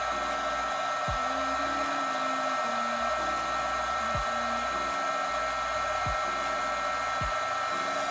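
Small handheld heat gun blowing hot air steadily, its motor noise carrying a steady whine, as it heats a GoPro Hero 8's case before prying.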